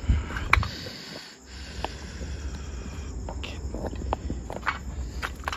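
Footsteps crunching and clattering over broken roof tiles and rubble, with irregular clicks and knocks, two loud ones in the first half-second, over a low rumble. Crickets chirp faintly in the background.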